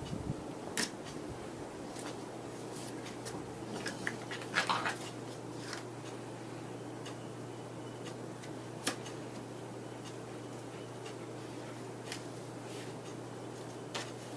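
Puppies moving about and playing: scattered clicks, light knocks and scratchy scrapes, with a small cluster about four to five seconds in, over a steady low hum.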